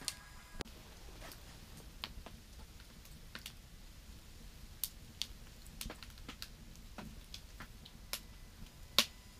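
Wood fire crackling in a small steel wood stove: scattered sharp pops and snaps at irregular moments, the loudest near the end, over a faint low rumble.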